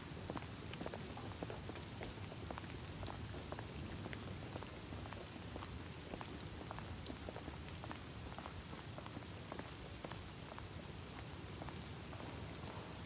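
Light rain falling: a steady soft hiss with scattered drops pattering.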